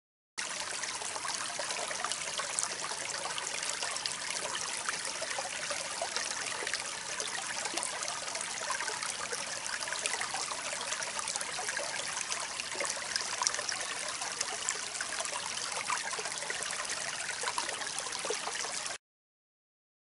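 Shallow stream running over rocks, a steady babbling rush of water. It starts suddenly just after the outset and cuts off suddenly near the end.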